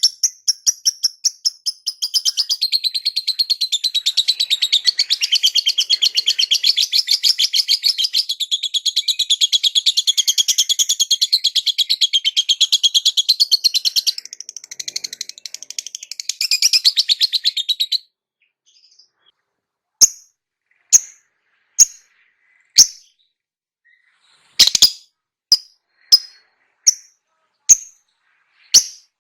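A cage bird's song: a long, fast run of repeated high chirps, several a second, lasting about eighteen seconds. After a short pause come single sharp chirps about once a second.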